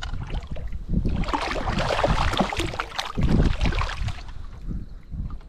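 Water splashing: a busy run of splashes from about a second in until near the end, over low thumps.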